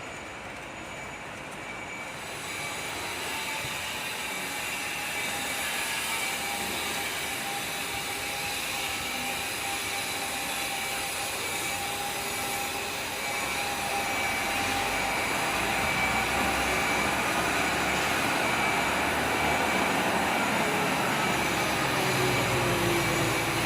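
Noise of a heavy vehicle growing steadily louder, with thin steady whining tones and a tone that falls in pitch near the end.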